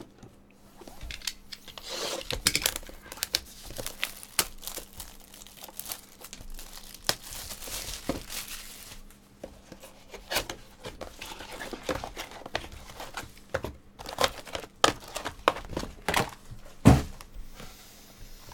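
Plastic shrink wrap being torn and crinkled while a sealed baseball card box is opened and its plastic-wrapped mini boxes are handled, with scattered clicks and cardboard knocks. A louder knock comes near the end.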